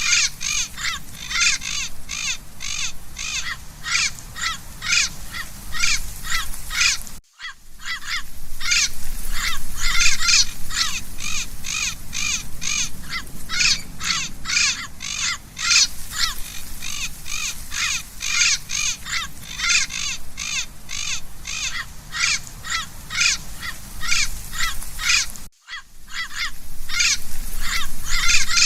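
Parrot squawking: a steady stream of short, harsh calls, about three a second, broken by two brief silent gaps.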